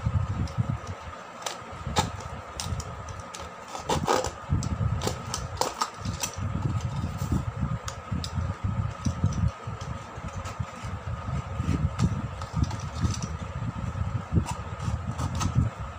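Snap-off utility knife cutting thin printed cardboard of a toothpaste box, with short scratchy clicks as the blade scores and snaps through, densest about four to six seconds in. Underneath runs a steady hum with an uneven low rumble.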